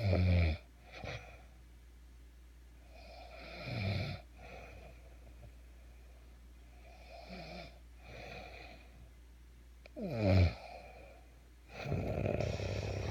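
Snoring: loud, buzzing snores about every three to four seconds, with softer breaths in between.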